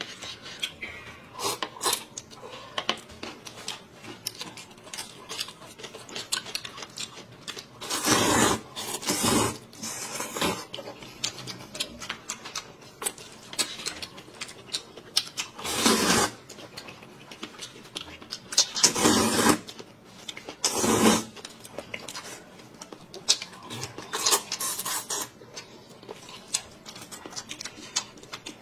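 Irregular rustling, scraping and clattering of food and dishes being handled, with several louder bursts scattered through.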